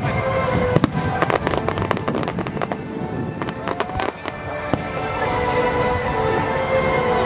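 Aerial fireworks shells bursting, with a quick run of sharp bangs and crackles through the first half or so, over steady music.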